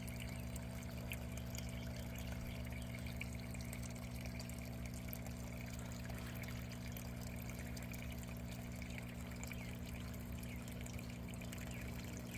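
Water pouring and trickling steadily through an aquaponics flood-and-drain grow bed, over a steady low hum.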